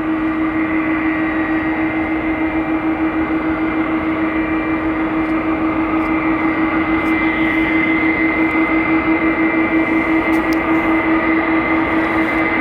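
Boeing 747 jet engines running, a loud steady drone with a strong low hum and a fainter whine above it. The level wavers about three times a second and builds slightly over the stretch.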